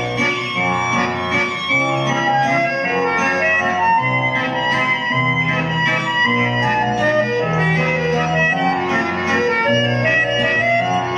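Instrumental break in a song: backing music led by an organ-like keyboard over a bass line that moves to a new note every second or so, with no singing.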